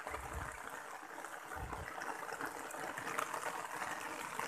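Steady rain hissing and pattering on wet ground and vegetation. Two brief low rumbles come on the microphone, one at the start and one about two seconds in.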